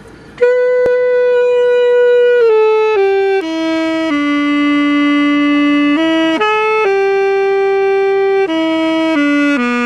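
Saxophone playing a slow melody of long held notes, mostly stepping downward in pitch, starting about half a second in.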